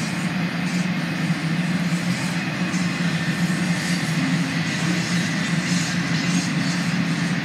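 CSX freight train of autorack cars rolling past, a steady rumble of wheels on the rails.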